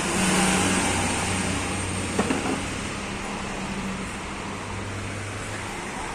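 A motor vehicle running, its noise slowly fading, with a single light knock about two seconds in.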